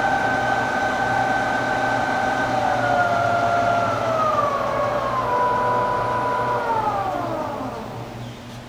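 Lehigh gap-bed engine lathe running on its variable-speed drive: a steady gear whine that steps down in pitch twice as the speed is turned down, then glides lower and fades near the end as the spindle slows.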